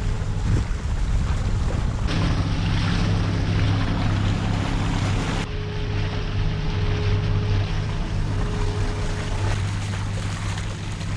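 Sailing catamaran under way in light wind: wind buffeting the microphone and water washing past the hulls, over a steady low hum. The sound shifts abruptly about two seconds in and again about halfway through.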